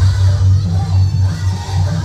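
Loud music with a strong, pulsing bass line and pitched melodic lines above it.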